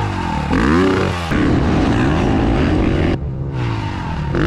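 Gas Gas 450 single-cylinder four-stroke dirt bike engine revving, its pitch climbing and dropping, in short clips that cut abruptly from one to the next.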